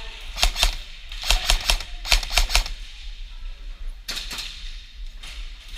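Airsoft gun firing in quick groups of sharp snaps, two to five shots at a time, with a last pair about four seconds in.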